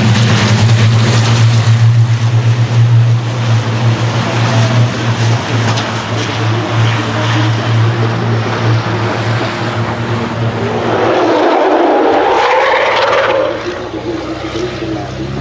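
Race trucks' diesel engines running past on a circuit: a loud, steady low drone, then a higher note that rises and falls about eleven to thirteen seconds in as the engine sound changes, with a quieter truck passing near the end.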